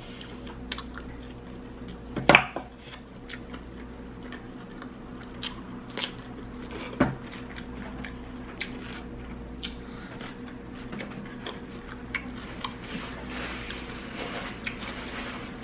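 Close-miked eating sounds: wet chewing and mouth smacks with scattered small clicks, and a louder click about two seconds in.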